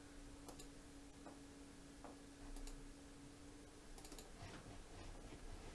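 Faint, scattered clicks of computer input devices (mouse and keyboard), over a faint steady hum that stops about four seconds in.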